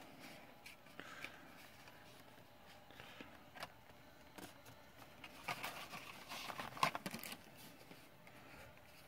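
Light clicks and rustling of carded die-cast toy cars in plastic blister packs being handled, with a cluster of sharper clicks about six to seven seconds in.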